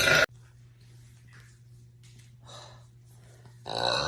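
A woman takes in a sharp, noisy gulp of air that cuts off just after the start, followed by a few soft breaths. About three and a half seconds in, a loud, long, deep burp begins.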